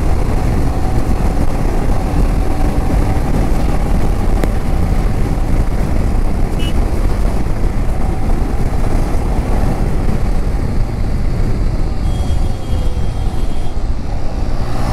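Royal Enfield Himalayan BS6's single-cylinder engine running steadily while the motorcycle cruises, mixed with wind and road noise.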